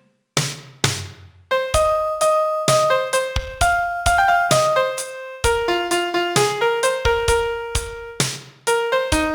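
Piano, likely a sampled or digital piano, playing the melody of a Chinese pop ballad one struck note at a time over low bass notes. Each note fades after it is struck. There are short pauses just after the start and at about a second and a half in, then the playing runs on without a break.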